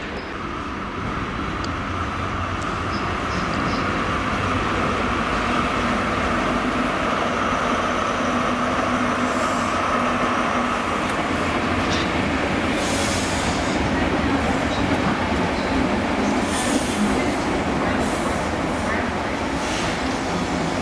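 First Great Western InterCity 125 (HST) passing: the Class 43 power car's diesel engine runs with a steady high tone, growing louder over the first few seconds. From about halfway, the coach wheels click over the rail joints.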